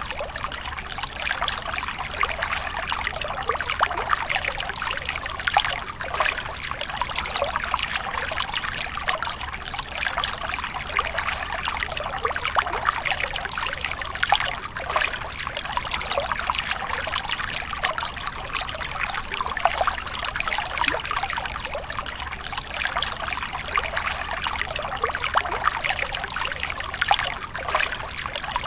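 A small trickle of water falling from a rock ledge into a shallow pool, splashing steadily.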